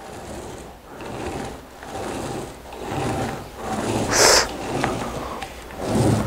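Small paint roller rolled back and forth over a car bonnet, laying on wet matte paint: a soft rolling swish about once a second. A little past halfway, a short hiss of breath sucked in through the teeth.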